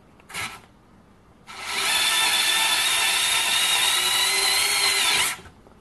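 WORX WX240 mini electric screwdriver on its maximum setting driving a Phillips screw into timber: a short burst near the start, then about four seconds of steady high-pitched motor and gear whine that cuts off sharply as the screw goes home.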